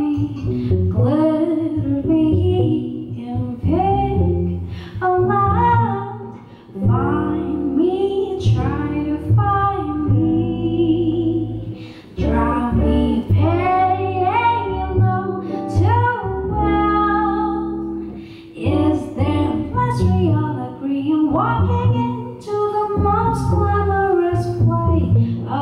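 A woman singing a jazz song with a small band behind her: electric guitar and upright double bass.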